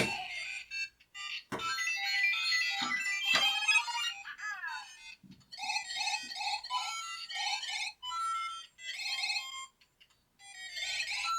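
Electronic chiptune jingles and bleeps in short bursts from the LEGO Mario figure's small speaker, with a few light knocks.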